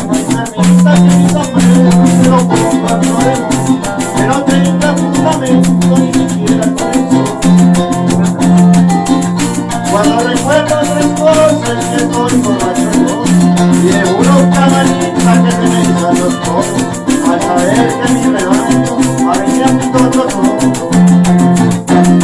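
Live llanera (joropo) music played on llanera harp, cuatro and maracas. The maracas shake in a fast, steady rhythm over a bass line of held low notes, with melodic runs on top.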